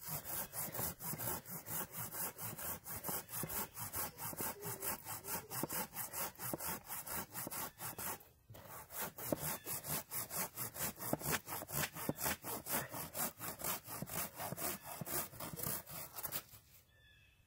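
Folding Silky hand saw cutting through an aspen pole, in steady back-and-forth strokes at about four a second. The sawing pauses briefly about eight seconds in, then carries on until it stops shortly before the end.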